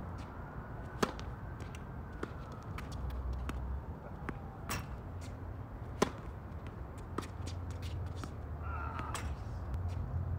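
Tennis racket hitting serves on a hard court: a sharp crack about a second in and a louder one about six seconds in, with smaller pops from ball bounces and shots in between, over a steady low hum.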